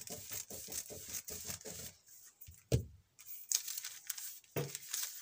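Scissors cutting through thin pattern paper, a quick run of crisp snipping and crackling strokes for about two seconds. Then a single knock as the scissors are set down on the table, and the paper rustling as it is handled near the end.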